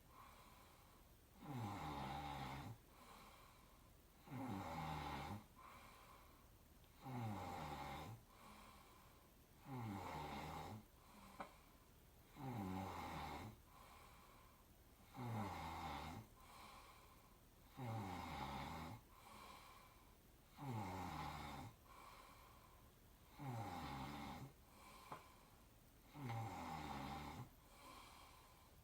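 A person snoring in a slow, even rhythm, one snore about a second long every two and a half to three seconds.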